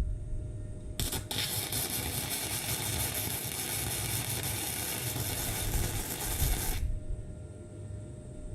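Gasless flux-core semi-automatic welder arc crackling in a steady sizzle. It strikes about a second in with a brief stutter, then runs for almost six seconds and cuts off sharply.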